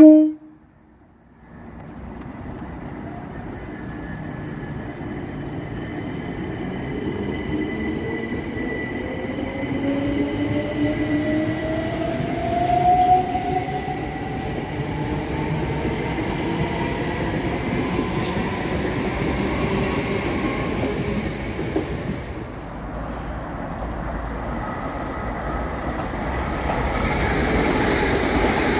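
c2c Class 357 Electrostar electric multiple unit giving a short horn toot, then pulling away: its traction motors whine, rising in pitch as it gathers speed, over the rumble of its wheels on the rails, growing louder as the carriages pass.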